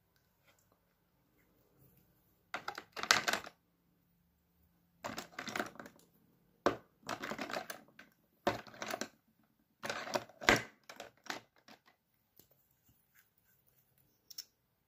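Small plastic make-up items clicking and clattering as they are handled and sorted, in about five short bursts of rapid clicks.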